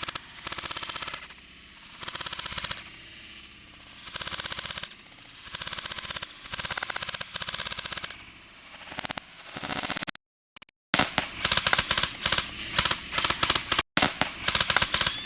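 Airsoft gun firing on full auto: a string of short bursts of rapid shots, each under a second. After a brief break about ten seconds in, a denser run of rapid popping follows.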